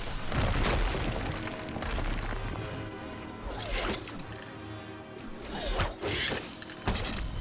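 Film score music under fight sound effects: a crashing, shattering impact near the start, then weapon swishes and sharp metallic strikes with a brief ring around four seconds in and again around six to seven seconds in.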